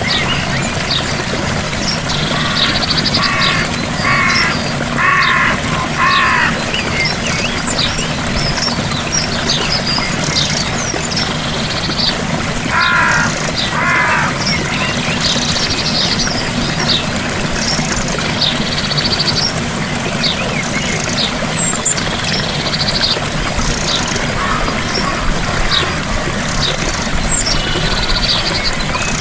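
Gentle waterfall running steadily, with birds chirping and calling over it throughout and a few lower calls in short series, four in a row early on and two more about halfway through.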